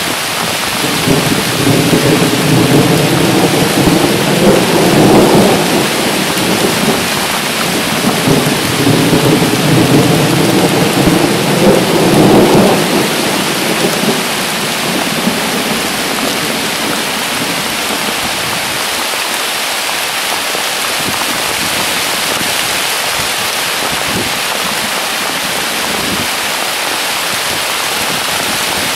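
Heavy downpour with a roll of thunder: a long low rumble builds about a second in, swells twice and dies away after about thirteen seconds. The steady hiss of pouring rain is left on its own.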